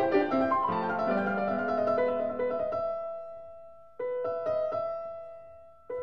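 Background piano music: a flowing run of notes, then held notes that fade out, with a fresh chord struck about four seconds in that also dies away.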